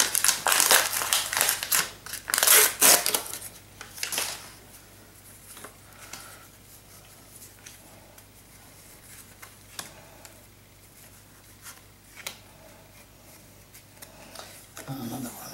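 Wax-paper wrapper of a baseball card pack crackling and tearing as it is opened, loudest in the first four seconds. After that, faint scattered clicks and slides of the cards being handled and leafed through.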